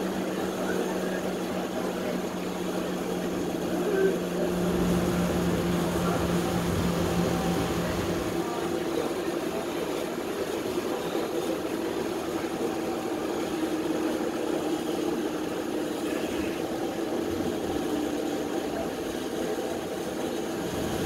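Steady running hum and noise inside a moving public transit vehicle. A low steady tone fades out about eight seconds in, and a higher steady tone carries on after it.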